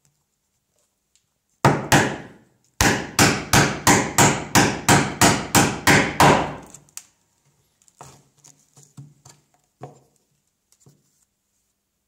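Mallet blows on a chisel chopping a mortise in white oak: two sharp strikes, then a steady run of about a dozen at roughly three a second, followed by a few much quieter knocks and clicks.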